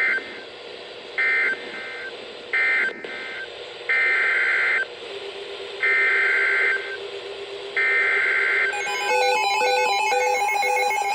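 Emergency Alert System SAME data tones in harsh two-pitch bursts. First come three short end-of-message bursts about 1.3 s apart, then three longer header bursts about 2 s apart that start the next alert. Near the end a beeping electronic alert signal of several pitches begins.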